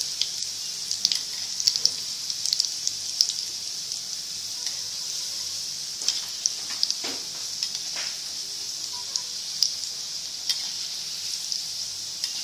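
Onion pakoras (besan and onion batter) deep-frying in hot oil in a wok: a steady sizzle with frequent crackling pops as fresh batter goes into the oil.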